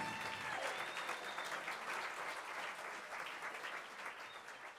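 Applause from a small seated audience, dying away steadily.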